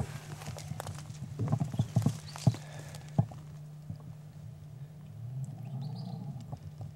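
Footsteps crunching through dry scrub, with branches scraping against clothing and gear and twigs snapping: a run of sharp crunches over the first three seconds, then quieter.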